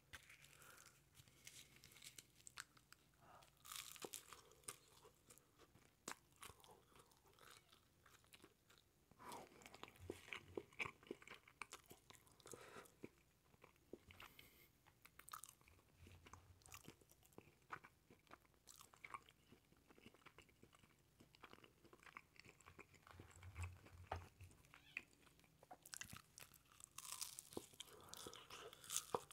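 Quiet, close-miked biting and chewing of a cheese quesadilla: a steady run of short mouth clicks and soft crunches from the tortilla. Busier spells of bites come about ten seconds in and near the end.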